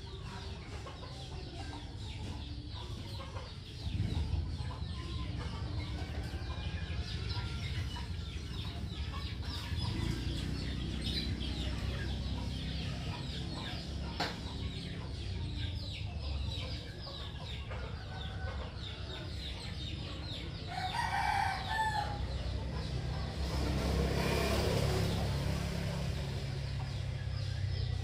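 Background chickens clucking, with a longer pitched call about three quarters of the way through, over a steady low rumble.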